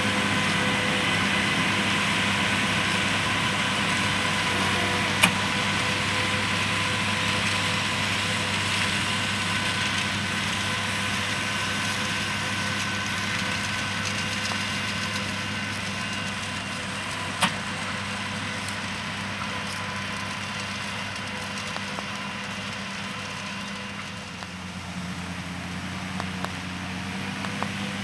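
Fendt Vario 716 tractor's six-cylinder diesel running steadily as it tows a Pöttinger Europrofi 2 loader wagon across the field, with a steady whine over the engine hum, slowly fading as it moves off. Two sharp clicks, about five and seventeen seconds in.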